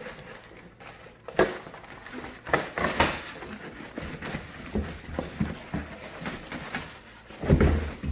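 Packaging being handled while a PC case is unboxed: cardboard and plastic rustling and scraping, with scattered knocks and a heavy thump near the end.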